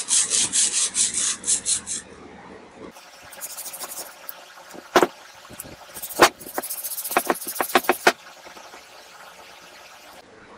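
Emery cloth rubbed quickly back and forth on the rusted, pitted end of a mower engine's steel crankshaft, about five or six strokes a second, for around two seconds. After a quiet gap, a few sharp clicks and knocks of metal parts being handled.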